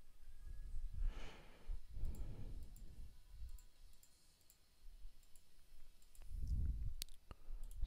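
Soft breaths close to the microphone, the loudest in the first few seconds, with a few sharp computer clicks near the end as vertices are selected and smoothed in a 3D modelling program.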